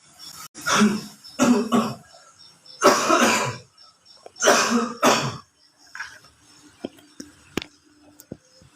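A person coughing loudly, about five coughs in four bouts over the first five seconds, then a few faint clicks.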